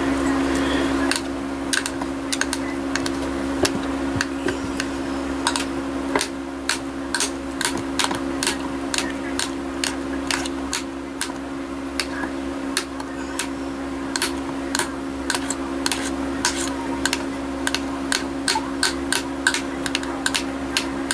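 Thin metal blade chopping through polymer clay and clicking against a hard work surface, about two to three sharp clicks a second at an uneven pace, over a steady low hum.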